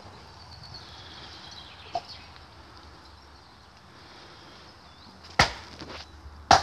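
Firewood being chopped with an axe: two sharp chopping blows about a second apart near the end, after a lighter knock about two seconds in.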